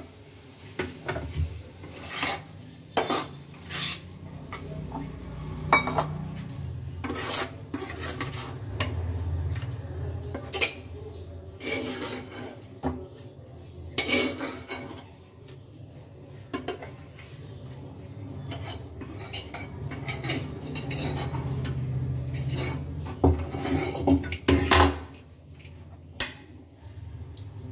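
Metal kitchen utensils clinking and knocking against pots and a kadai in irregular strikes, some in quick clusters, over a low steady hum.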